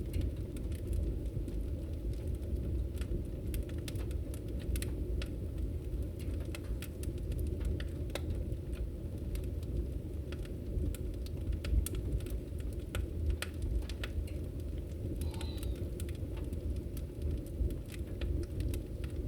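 Wood campfire crackling, with many scattered sharp pops and snaps over a steady low rumble.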